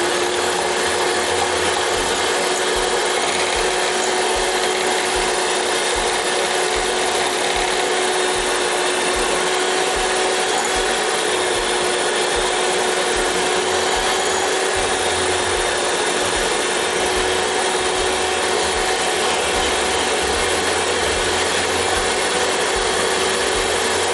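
Electric hand mixer running at one steady speed, its twin beaters whisking a toffee ganache in a ceramic bowl, with an even motor whine.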